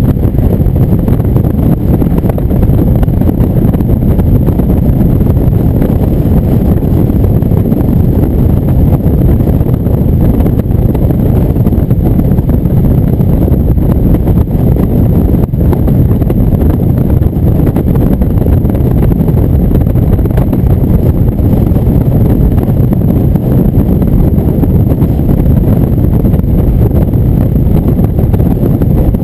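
Indian V-twin motorcycle cruising at highway speed, the engine running steadily under heavy wind rush on the microphone.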